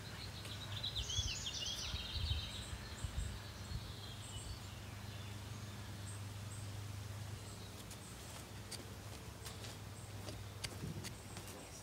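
Outdoor ambience: a small bird gives a quick run of chirping notes from about half a second to two seconds in, over a steady low hum. A few low thumps come in the first few seconds, and faint clicks come near the end.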